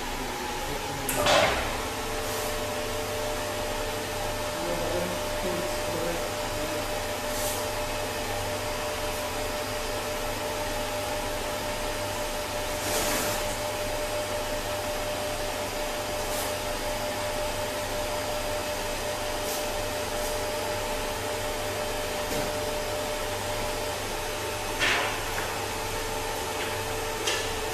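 Electro-hydraulic power unit of a Phoenix PA-7335 in-floor scissor lift running steadily as the twin platforms rise, a motor hum with a steady whine. A sharp clack comes about a second in, and a few more short clacks follow during the lift.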